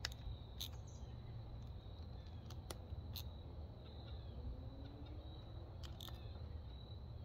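A few faint, irregular clicks from a hand ratchet tightening the bolts of a 4T65E-HD transmission accumulator cover, over a steady high insect trill.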